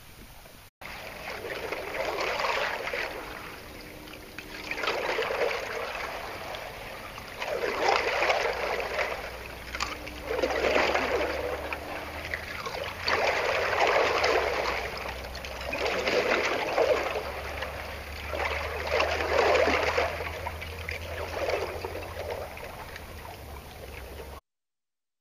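Lake water washing and surging in swells about every three seconds, over a low rumble. The sound cuts off abruptly near the end.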